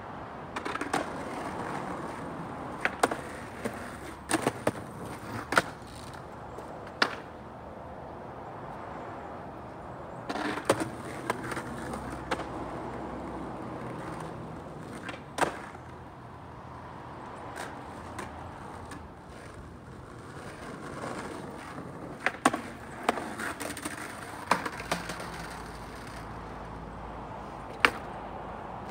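Skateboard wheels rolling on rough asphalt, with sharp clacks of the board's tail, nose and wheels hitting the ground in three bunches of trick attempts.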